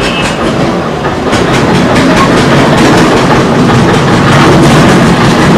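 Loud, steady rumbling noise with irregular clicking clatter through it, growing a little louder past the middle.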